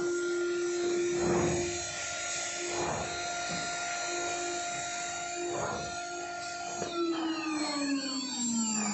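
CNC machine spindle running with a steady high whine, with a few short swells of noisier cutting or air sound. About seven seconds in, the whine slides down in pitch as the spindle slows.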